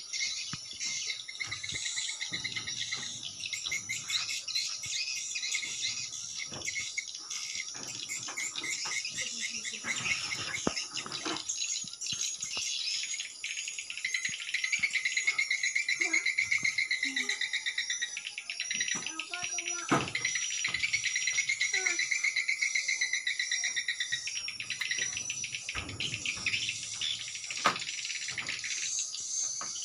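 Edible-nest swiftlet calls, rapid high chirping and twittering trills, played without a break from the swiftlet house's tweeter speakers as a lure sound. A few soft knocks come in about two-thirds of the way through and near the end.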